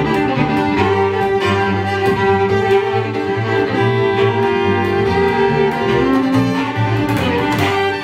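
Two fiddles playing a fiddle tune together in quick, steady bowed notes, over an upright double bass.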